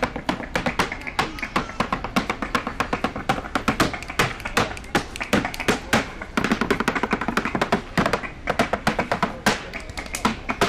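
A street dancer's rapid percussive footwork: shoes tapping fast, irregular rhythms on a portable dance board, with music playing underneath.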